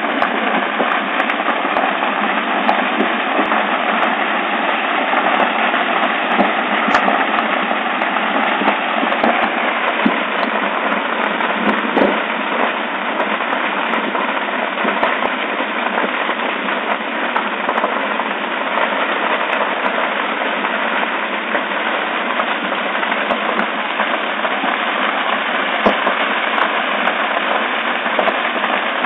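Large building fire burning: a steady rushing noise of flames with frequent sharp crackles and pops from the burning timber frame.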